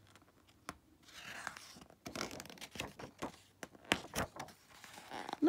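Paper pages of a picture book being handled and turned: soft rustling with scattered sharp clicks and scrapes of paper.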